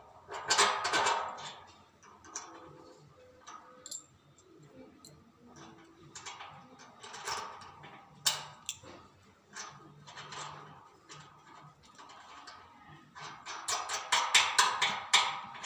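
Small hard clicks and knocks of a spanner, bolt and washer against a satellite dish's metal LNB arm and plastic LNB holder as the holder is fitted and tightened. There is a cluster of clicks just after the start and a fast run of clicks near the end.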